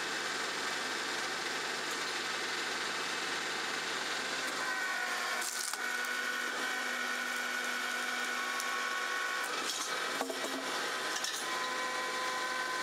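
Tractor-PTO-driven Balfor A18 C vertical hydraulic log splitter running at 300 PTO rpm, its steady machine hum gaining a steady tone about five seconds in as the wedge is driven down into a log. The log cracks and splits with sharp snaps about halfway through and again near the end.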